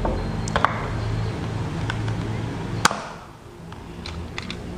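Nerf Nanofire spring-powered dart blaster: a couple of small plastic clicks about half a second in, then a single sharp snap as it fires, about three seconds in.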